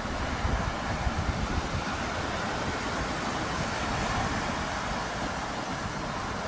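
Steady rumbling noise with a constant hiss over it, even throughout.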